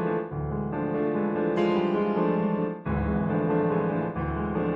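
Piano music: sustained chords over three deep bass notes, with a brighter high passage in the middle.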